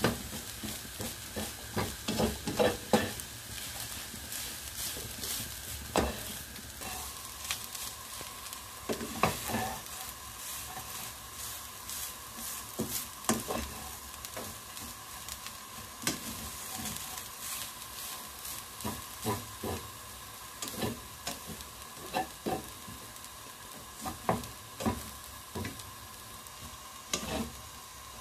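A spatula stir-fries grated coconut coated in red chili paste in a hot pan, with a steady light sizzle. Irregular scrapes and knocks come as the spatula pushes and turns the coconut against the pan.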